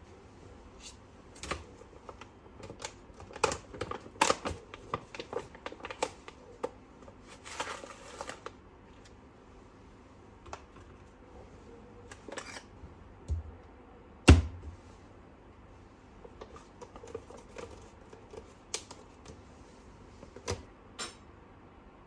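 Irregular clicks, taps and light knocks of hands working a Karaca filter coffee machine, thickest in the first eight seconds. There is a short rustle about eight seconds in and one heavier knock a little past the middle.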